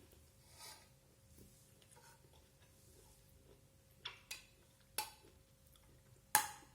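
Cutlery clicking against a plate while eating: four short clicks in the second half, the loudest near the end.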